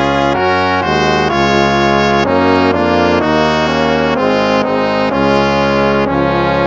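Instrumental hymn played on brass, trumpets and trombones, in slow sustained chords that change about every half second. It fades out quickly right at the end.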